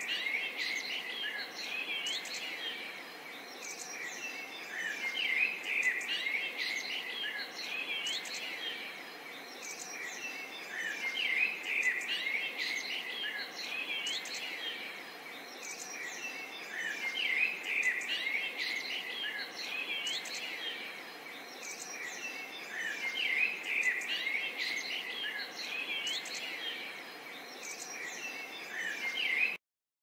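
A chorus of songbirds chirping and calling, many short quick notes over a steady hiss, the chirping swelling louder about every six seconds.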